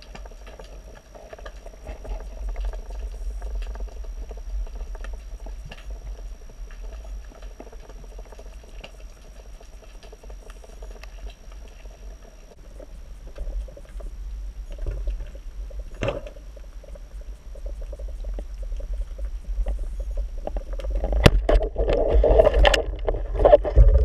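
Underwater sound of a freediver's camera housed on a speargun: a steady low rumble of water moving past, with scattered clicks and crackles. Near the end it grows louder with sharp clicks, splashing and bubbling as the diver reaches the surface.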